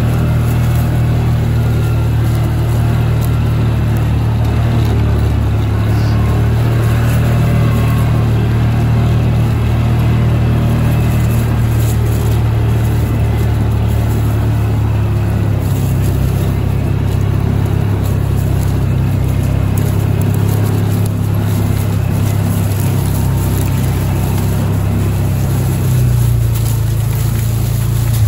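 A vehicle's engine running steadily as it drives slowly along a rough dirt trail, with a slight change in its note near the end.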